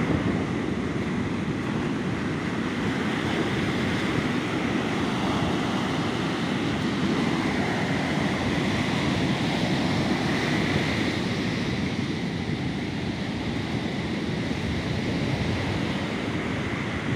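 Ocean surf breaking on the beach, heard as a steady, unbroken wash of noise.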